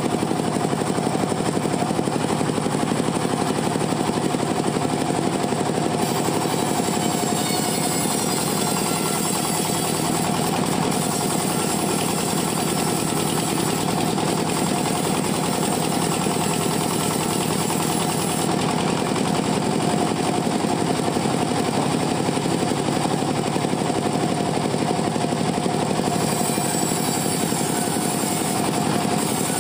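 Band saw cutting teak wood, running steadily with a fast, rattling mechanical drone.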